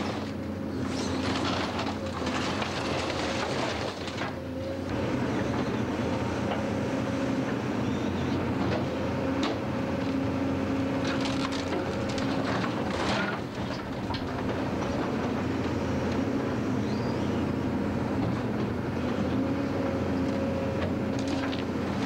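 Diesel engine of a tracked excavator running steadily under load, with scattered crunches and clanks of metal and timber as its bucket crushes a caravan and drags a tractor.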